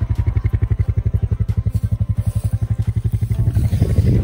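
Farm bike engine running at low, steady revs, its exhaust beating evenly at about a dozen pulses a second, a little louder near the end.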